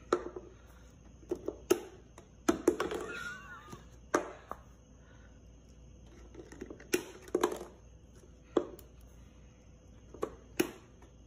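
Plastic drink cup with a snap-on lid being set down and then nudged and knocked about on a wooden tabletop: a scattering of sharp taps and thunks, some in quick pairs, with long gaps between them.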